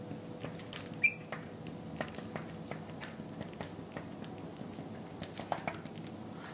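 Marker writing on a glass lightboard: scattered light ticks and short squeaks as the tip is pressed and dragged across the glass.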